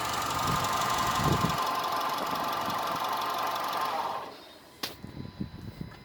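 Honda CR-V engine running steadily, then switched off about four seconds in, the sound dying away quickly; a single sharp click follows shortly after.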